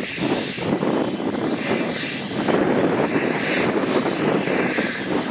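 Two narrow-gauge steam tank locomotives, Lyn and Lyd, double-heading a train past, their exhaust beats running together into a continuous loud chuffing rush.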